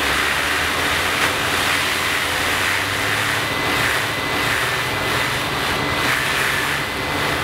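Leaf blower running steadily, a loud rushing blast of air with a thin high whine over it, aimed at a hand-held fidget spinner to spin it.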